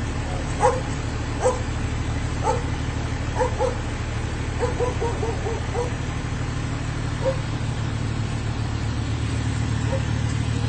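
A dog barking repeatedly, about a dozen short barks, some in quick runs around the middle, over a steady low hum.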